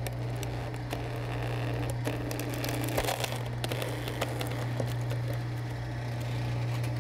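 A log splitter's steel wedge forcing its way slowly into a hardwood firewood log: the wood crackles and gives scattered sharp cracks as the fibres split, over a steady low machine hum.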